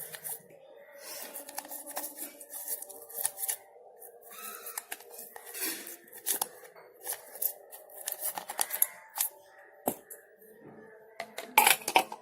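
A toothbrush scrubbing a mixer grinder jar and lid: irregular scratchy strokes mixed with small clicks and knocks, with a few louder clinks near the end.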